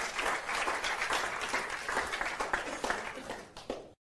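Audience applauding, a dense patter of many hands clapping that thins out near the end and then cuts off abruptly.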